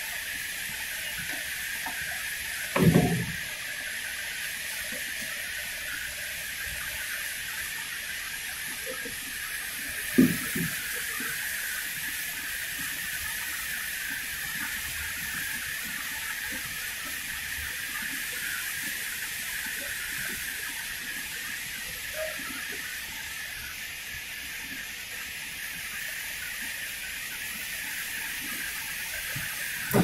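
A steady high hiss, with two short knocks about three and ten seconds in.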